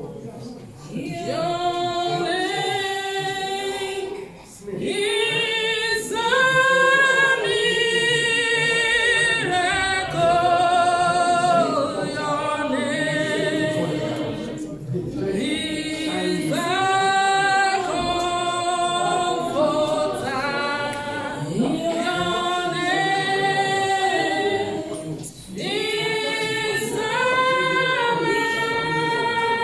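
A group of voices singing a gospel song a cappella in held, sustained phrases, with short breaks between the lines.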